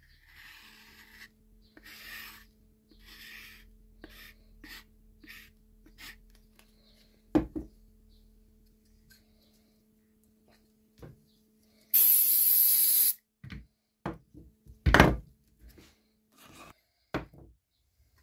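Hand work on a bench as MDF squares are glued and pressed onto an oak board: soft rubbing and light clicks, a sharp knock about seven seconds in, a loud one-second hiss of an aerosol spray about twelve seconds in, then the loudest knock soon after. A faint steady hum runs underneath.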